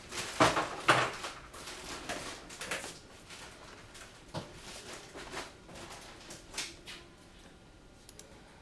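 Irregular knocks and clatter of objects being handled, the two loudest about half a second and a second in, then sparser and fainter knocks until it dies away near the end.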